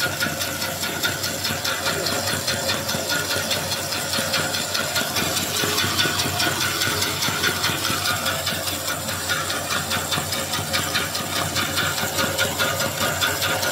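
Small corn puff extruder running steadily while extruding puffed corn, its motor and screw making a continuous mechanical drone with a fast, even pulsing.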